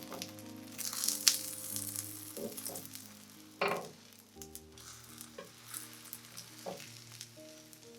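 Food sizzling in hot oil in a pan, loudest in the first couple of seconds and then dying down, with a sharp clatter about a second in and another near the middle. Soft background music plays underneath.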